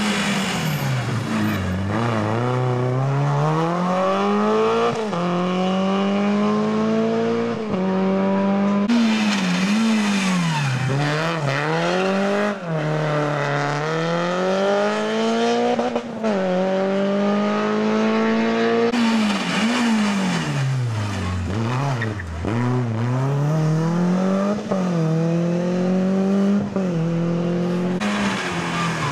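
Rally cars, small front-wheel-drive hatchbacks such as a Renault Clio and a Peugeot 306, take a corner one after another. Each engine's pitch drops as it brakes and downshifts, then climbs in steps through the gears as it accelerates away. The same pattern repeats for about four cars.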